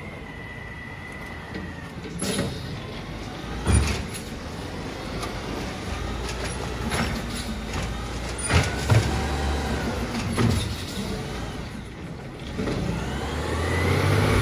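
Autocar ACX garbage truck with an Amrep automated side-loader, its engine revving up and down while the hydraulic arm lifts and dumps a trash cart. Several sharp bangs come as the cart knocks against the arm and hopper, two of them close together about nine seconds in. The revs climb again near the end.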